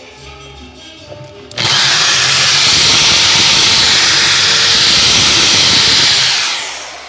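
Handheld power drill running with its bit in a small hole, widening it so a cable will pass. It starts suddenly about a second and a half in, runs steadily for nearly five seconds and winds down near the end.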